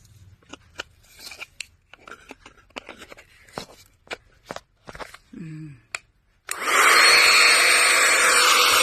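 Plastic clicks and knocks as the parts of a small handheld vacuum cleaner are handled and fitted together, then, about two-thirds of the way in, its motor switches on and runs steadily with a high whine.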